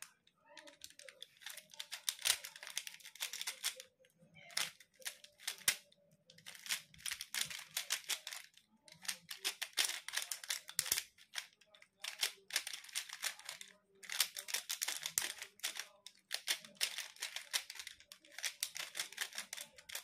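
Plastic 3x3 Rubik's cube being turned rapidly by hand: bursts of quick plastic clicks and rattles as the layers rotate, with a few short pauses.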